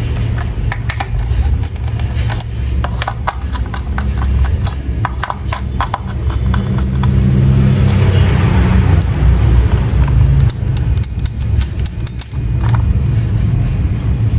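Irregular clicks and rattles of plastic toy parts being handled, over a steady low rumble.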